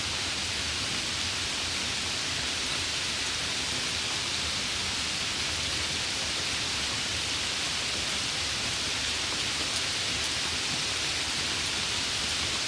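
Steady summer rain falling, an even, unbroken hiss.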